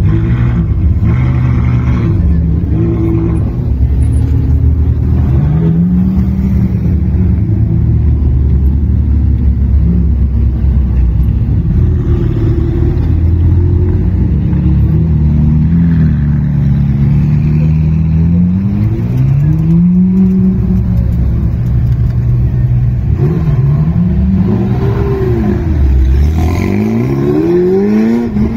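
Ferrari V8 engines running at low speed as the sports cars roll by one after another, revved up and down repeatedly. Several quick throttle blips come near the end.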